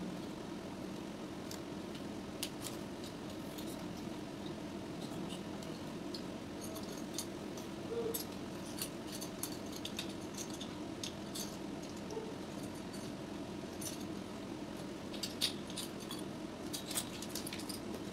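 Microphone scissor boom arm being handled and unfolded: scattered clicks and light metallic rattles from its joints, with a cluster of them near the end, over a steady low hum.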